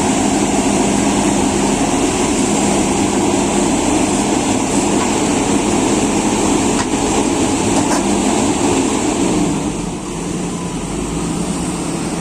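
JCB excavator's diesel engine running steadily under load, with hydraulic working noise, easing off about ten seconds in.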